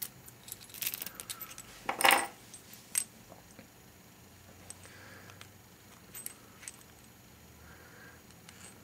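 Small metal clicks and clinks of tubular locks and their keys being handled, with the loudest short clatter about two seconds in, then a few faint ticks.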